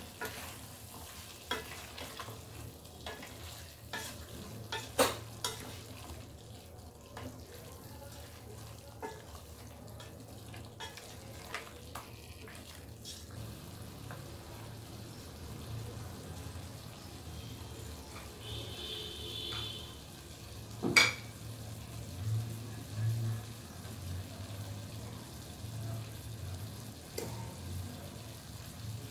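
Pumpkin curry sizzling gently in a metal pot while a spoon stirs it, clinking and scraping against the pot through the first half. A brief high tone comes near the middle, and a single sharp knock, the loudest sound, about 21 seconds in.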